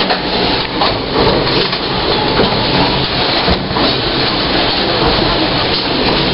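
Gateway Arch tram capsule running along its track, a steady mechanical rattle and rumble heard from inside the small capsule.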